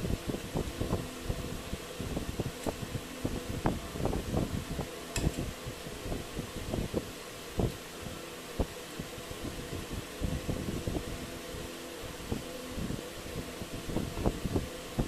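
Eating off steel plates by hand and with a spoon: irregular soft taps and knocks, with one sharper clink about five seconds in, over a steady low hum.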